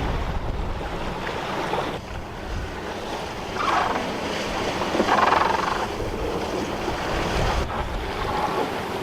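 Sea water washing and splashing along the hull of a wooden sailboat under way, with wind buffeting the microphone. Two louder swooshes come about four and five seconds in.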